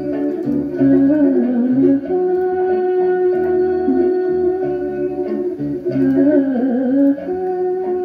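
Music played back from a cassette tape: an instrumental passage of held notes, with a melody line that bends down and back up twice.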